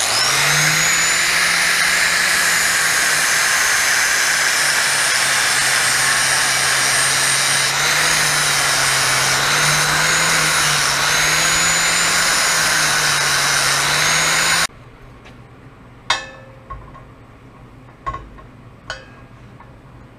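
Angle grinder running on steel for about fifteen seconds, its pitch dipping and wavering as it is worked, then cutting off suddenly, followed by a few light metal knocks.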